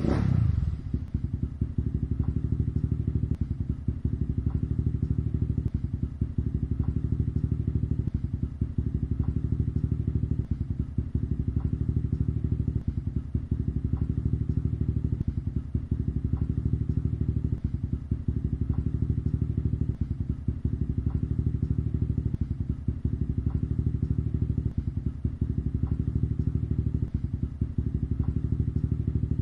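An engine running steadily with a low, rapid chugging and a faint regular tick a little more than once a second.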